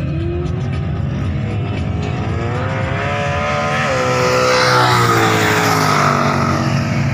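Two drag racing cars accelerating hard down the strip, their engines climbing in pitch, dropping at a gear change about four seconds in, then climbing again as they pass.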